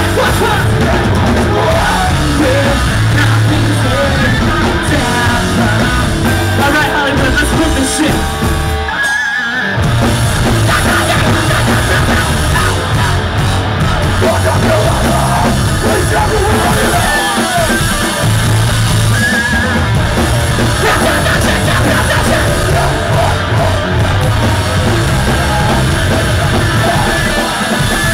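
A loud live rock band plays, with distorted guitars, a drum kit and yelled vocals. The music breaks off briefly about nine seconds in, then comes back in full.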